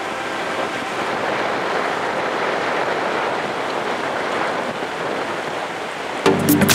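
Steady rushing noise of wind and water. Music cuts in suddenly near the end.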